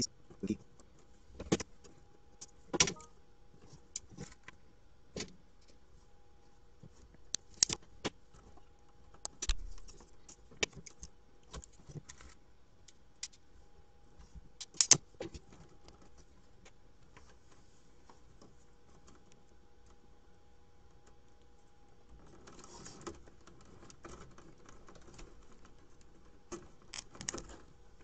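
Irregular sharp clicks and taps of a plastic Molex-style connector housing and its crimped metal pins being handled and fitted on a wire bundle. The clicks come often in the first half and then thin out, with a soft rustle and a few more clicks near the end, over a faint steady hum.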